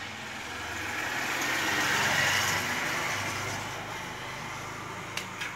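A road vehicle passing by, its noise swelling to a peak about two seconds in and then slowly fading. Two short clicks near the end.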